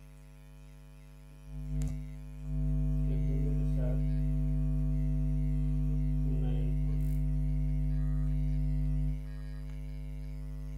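Electrical mains hum, a steady buzz with its overtones, that jumps much louder about two seconds in, just after a click, and drops back down about nine seconds in.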